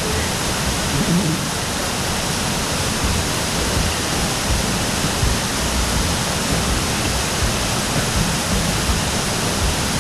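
Waterfall water rushing, a steady, unbroken wash of noise.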